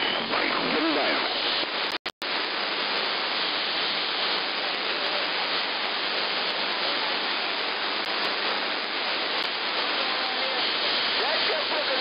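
Steady hiss and static from an AM radio receiver tuned to CB channel 11 (27.085 MHz), with faint, garbled voices of distant CB stations coming through the noise near the start and again near the end. These are long-distance skip signals. The audio cuts out twice, very briefly, about two seconds in.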